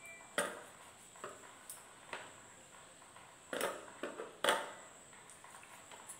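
A spoon knocking and scraping in a small bowl of thick paste, about eight sharp taps, loudest about three and a half and four and a half seconds in.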